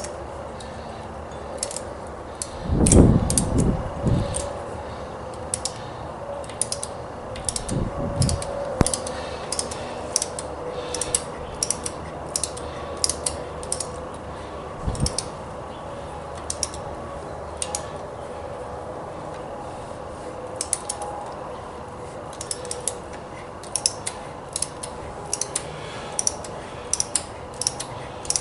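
Tapping a 10-32 thread by hand in a drilled hole in a lathe carriage: the tap and tap wrench click sharply, about one to two times a second in small clusters. A few low thuds come a few seconds in.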